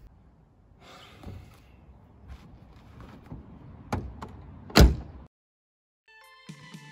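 Car door swung shut with one loud slam about five seconds in, after a few lighter clicks and a knock of handling. Music starts near the end.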